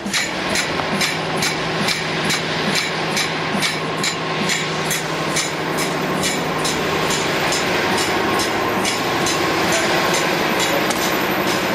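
Spiral paper tube winding machine running, paper strips winding onto the steel mandrel: a steady mechanical hum with a regular clicking, about two clicks a second.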